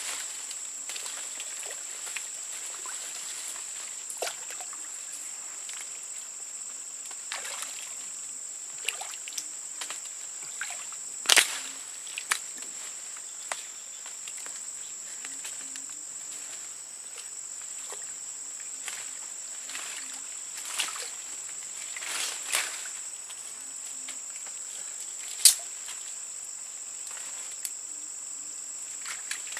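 A steady high-pitched insect drone over a stream, broken by occasional water sloshes and splashes and a few sharp knocks, the loudest about 11 seconds in and again about 25 seconds in.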